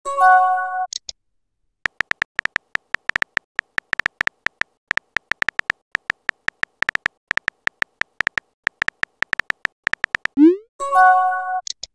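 Chat app sound effects: a short electronic chime of a few steady tones, then a long run of rapid keyboard tap clicks as a message is typed, then a quick rising swoosh and another chime as the message is sent near the end.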